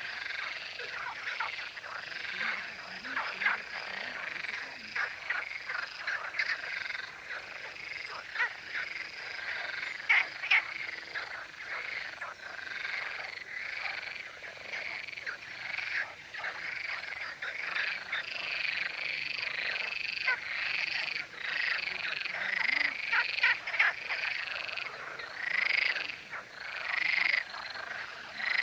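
Chorus of male frogs, many calling at once in dense overlapping short croaks: males calling together to attract females.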